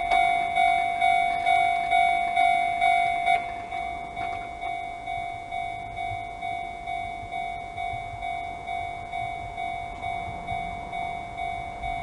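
Japanese railway level crossing's electronic warning bell (Chichibu-type tone) ringing on and on, about one and a half strokes a second, warning of an approaching train. About three seconds in it drops to a noticeably quieter level and keeps ringing.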